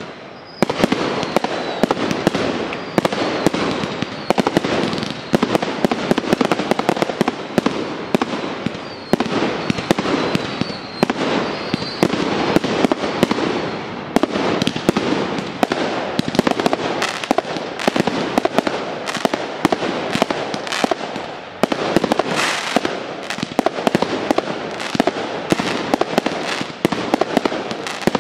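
Aerial fireworks display: a dense, continuous barrage of bursting shells and crackle, with many sharp bangs in quick succession. It picks up about half a second in.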